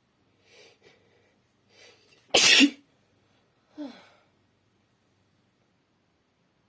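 A person sneezing: two quick breathy intakes build up to one loud, sharp sneeze, followed about a second and a half later by a smaller voiced sound that falls in pitch.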